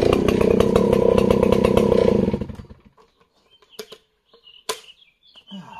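Stihl 041AV 61cc two-stroke chainsaw running under load in a conifer log, then the engine dies away and stops about two and a half seconds in. A couple of sharp knocks follow, and birds chirp faintly near the end.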